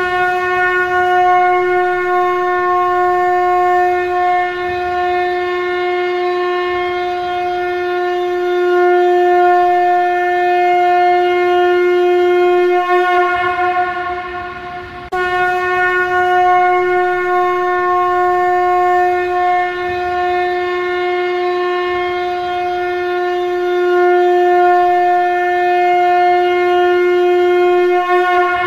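Shankha conch shell blown as a trumpet: two long blasts held at one steady pitch, each about thirteen seconds. The first fades out about halfway through, and the second starts abruptly just after.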